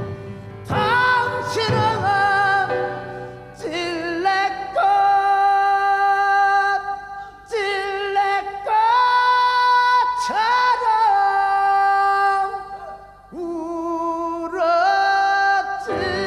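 Music: a slow, wordless melody of long held notes that slide up into pitch and waver, over a soft low accompaniment, in a Korean traditional-style song performance.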